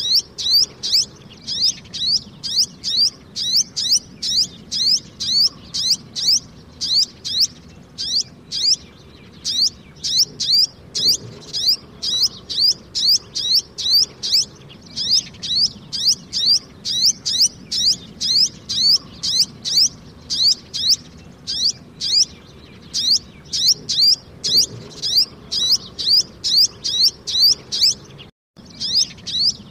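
A sunbird calls with a steady series of short, high chip notes, about two or three a second, with a brief break near the end.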